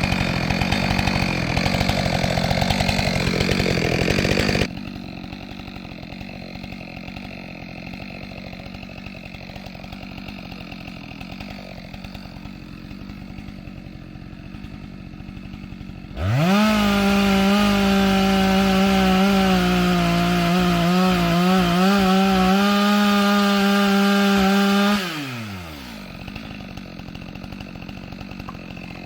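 Chainsaw cutting into a large tree under load, dropping abruptly to idle about five seconds in. About sixteen seconds in it revs sharply back up to full throttle and holds for some nine seconds, the pitch wavering near the end, before falling back to idle.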